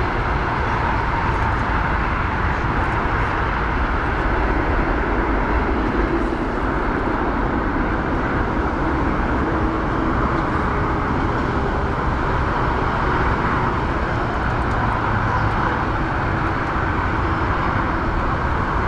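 Jet engines of a Boeing 747-400 giving a loud, steady roar as the four-engined airliner rolls out along the runway just after touchdown.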